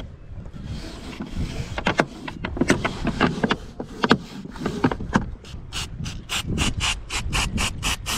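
Sailboat deck hardware being worked by hand: a sheet car is slid along its metal deck track with rubbing and irregular clicks. About six seconds in, a quick, even run of clicks starts, about five a second.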